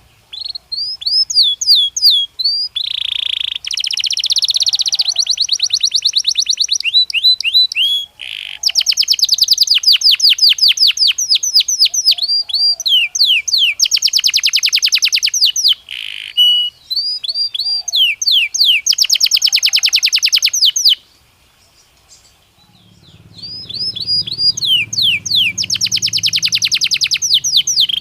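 Belgian canary singing: phrases of fast repeated notes and rolling trills, high-pitched, with a brief pause about three quarters of the way through before the song resumes.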